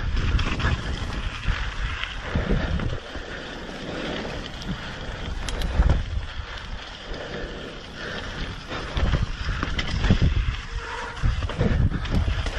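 Mountain bike riding along a wet trail: wind buffeting the microphone in low rumbling gusts, over the rush of tyres and a few sharp knocks and rattles from the bike.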